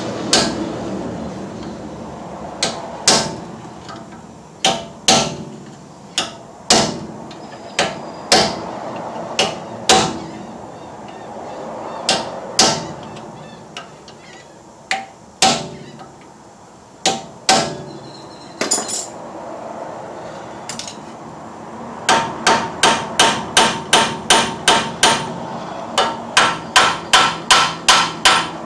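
Hand hammer striking metal on the front axle assembly to loosen the rusty right CV shaft: separate blows at first, then a quicker, steady run of about two or three blows a second near the end.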